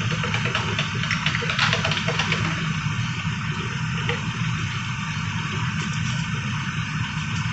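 Steady low mechanical hum with hiss from running workshop machinery. Light clicks and clinks of small parts being handled come in the first couple of seconds, with one more about four seconds in.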